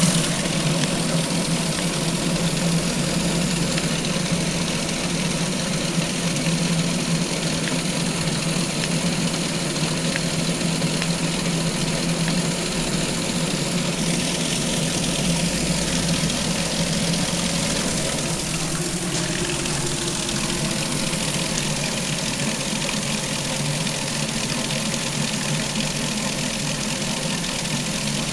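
Homemade Pelton wheel spinning at high speed with no load, driven by a garden-hose water jet: a steady hum from the spinning wheel over the hiss and splatter of water spraying off its buckets.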